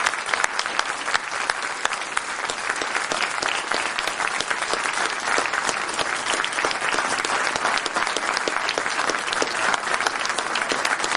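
Audience applauding, with dense, steady clapping of many hands.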